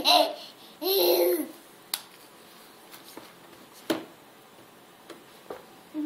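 A young child's short babbling sounds at the start, then sharp, scattered clicks a second or so apart: teeth grinding and clicking together.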